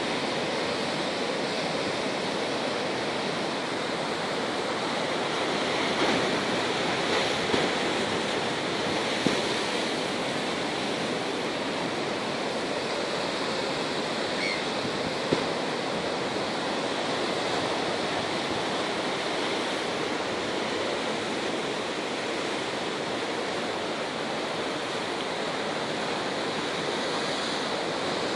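Sea surf breaking and washing over rocks: a steady rush of waves, with a few brief taps near the middle.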